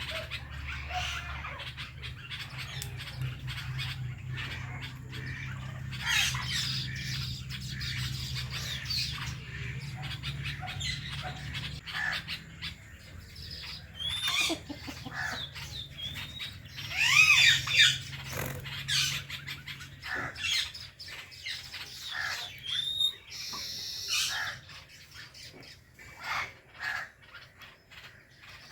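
Indian ringneck parakeets chirping and squawking in short, scattered calls, with some quick rising and falling whistled notes, loudest in bursts partway through. A steady low hum runs underneath and stops about twenty seconds in.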